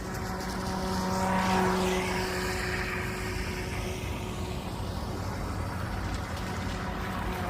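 Electric motor of an HJ806 RC speedboat running at speed with a steady whine; it grows louder about a second in, with a hiss, then settles.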